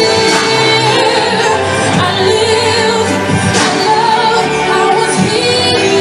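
Loud, steady song with a singing voice.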